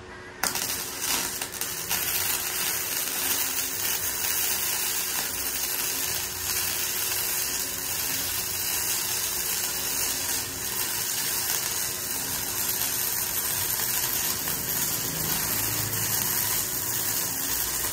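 Gasless MIG welder arc welding a 90-degree corner joint in 1 mm steel: a steady, smooth crackling sizzle that starts about half a second in and keeps going without a break.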